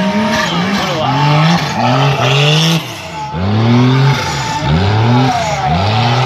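Off-road racing buggy's engine revved hard in repeated bursts while it is driven through mud, the pitch climbing and dropping back over and over, each rev lasting about a second or less.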